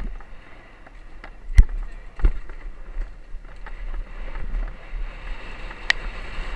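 Mountain bike rolling fast down a dirt trail, heard from a camera on the bike or rider: a steady rumble of tyres and wind on the microphone, with sharp knocks as the bike jolts over bumps, the loudest about a second and a half in and again just after two seconds.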